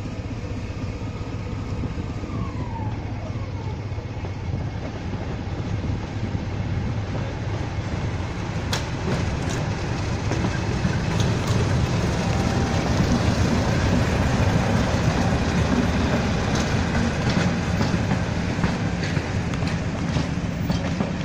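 English Electric Class 50 diesel locomotives running past at low speed hauling a train of coaches, a continuous low engine drone that grows louder towards the middle. From about eight seconds in it is joined by the clickety-clack of wheels over the rail joints.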